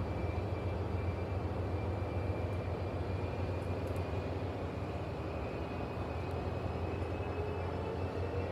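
Amtrak diesel locomotive approaching slowly. Its engine gives a steady low drone under a faint high whine that rises slightly in pitch toward the end.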